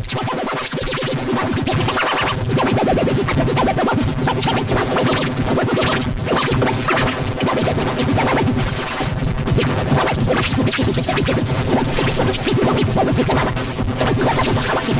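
Dense, continuous music-like sound with a scratchy texture: the detergent commercial's jingle and voices layered and run through heavy pitch-shifting and distortion effects, so that no words can be made out.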